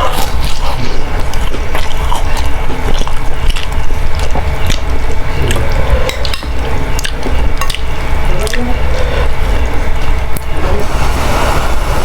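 Close-miked eating of boiled instant noodle soup: wet slurping and chewing with many small clicks.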